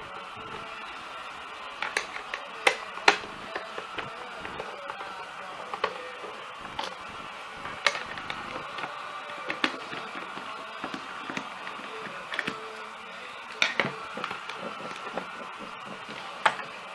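Irregular clicks, taps and knocks of a crosshead screwdriver and the plastic housing of a Vax Blade cordless vacuum floor head being unscrewed and handled, over a steady hiss. The sharpest knocks come about three seconds in and shortly before the end.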